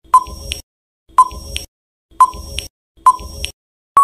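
Quiz countdown-timer sound effect: four short ticking pulses about a second apart, each a sharp ping followed by a lighter click.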